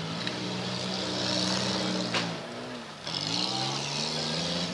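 Demolition derby car engines revving, the pitch falling about two seconds in and climbing again a second later. A sharp bang sounds about two seconds in.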